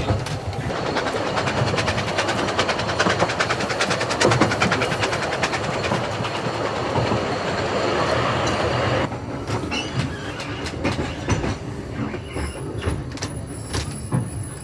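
Narrow-gauge railway carriage running along the track, wheels clattering in a fast, even rhythm over a steady rumble. About nine seconds in it drops suddenly quieter, leaving scattered clicks and a thin high squeal near the end as the train takes a curve.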